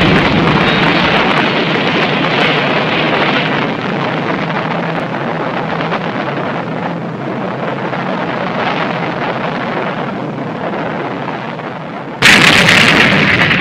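Rumbling roar of a blast slowly dying away, then a sudden, much louder explosion about twelve seconds in.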